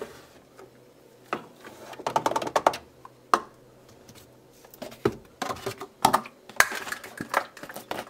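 Irregular plastic clicks and rattles from handling a washing machine's detergent dispenser drawer while washing powder is added, bunched about two seconds in and again through the last three seconds.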